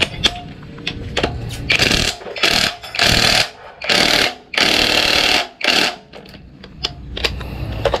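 A power tool run in about five short bursts, each half a second to a second long, with sharp clicks and knocks between them.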